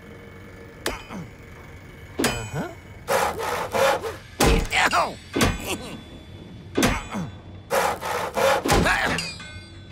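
Hand saw cutting into a wooden post in bursts of rasping strokes. The strokes start about three seconds in, come in two runs with a pause in the middle, and run to near the end.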